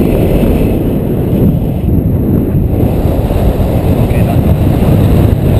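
Steady, loud wind rushing over the microphone of a paraglider in flight.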